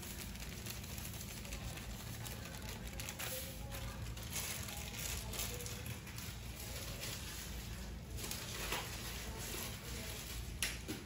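Quiet, steady kitchen background of low hum and hiss, with a few faint soft taps and rustles.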